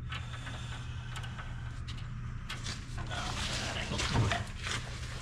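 Faint rustling and light clicks of hand work as a nut is fitted onto the edger's cable end, over a steady low hum.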